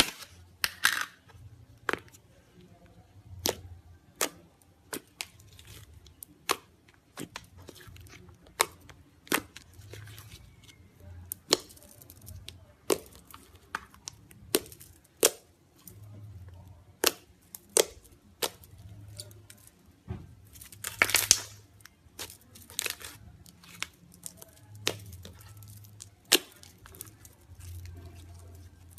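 Slime being squeezed and pressed by hand, making irregular sharp popping clicks, about one or two a second, with a longer crackling stretch about twenty seconds in.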